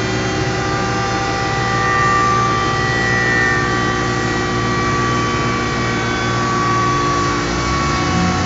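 Suzuki Hayabusa's 1340 cc inline-four engine running steadily at constant revs, the pitch rising only slightly and settling back.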